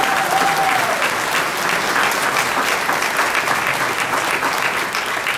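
Crowd applauding: dense, steady clapping from a large audience.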